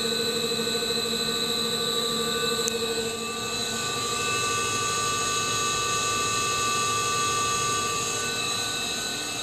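Ghiringhelli M200 centerless grinder running: a steady machine whine made of several held tones over a low hum, with the mix of tones shifting about three to four seconds in.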